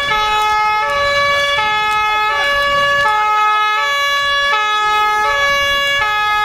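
Fire engine's two-tone siren sounding continuously, alternating between a high and a low tone about every three-quarters of a second.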